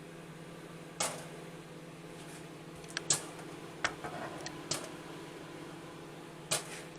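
Popcorn kernels popping in a paper bag inside a running microwave oven: about half a dozen sharp pops at irregular intervals over the oven's steady hum.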